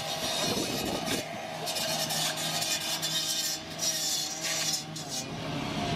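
Firefighter's hose nozzle spraying water onto burning brush in a hissing rush that swells and fades, over a steady low engine hum.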